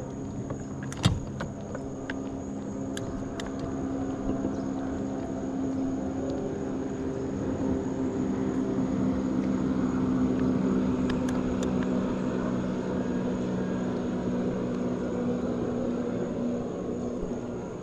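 A passing engine's steady drone, swelling to its loudest about halfway through and slowly fading. A sharp tap sounds about a second in.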